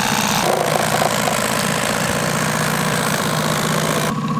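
Boat motor idling steadily, with a steady hiss over it that drops away near the end.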